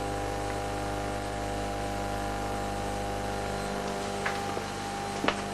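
Steady electrical hum from the rewound microwave-oven transformer powering the Rijke tube's heating element while the element heats up, before the tube starts to resonate. A few faint clicks come near the end.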